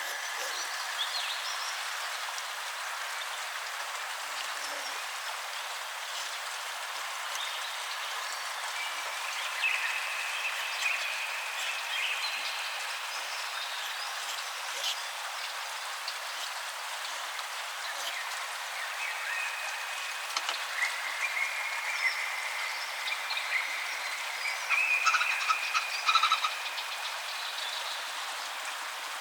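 Nature-sounds recording of a frog chorus over a steady hiss. Trains of short, high repeated calls come and go, loudest and busiest near the end.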